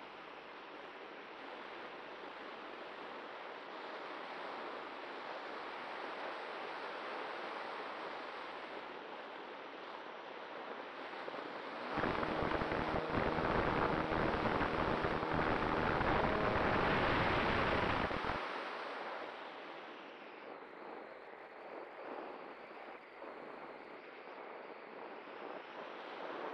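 Airflow rushing past the onboard camera of a Cularis electric glider as it glides with its propeller folded. About twelve seconds in, the electric motor starts and the folding propeller runs for about six seconds, much louder than the airflow, then stops and the airflow hiss returns.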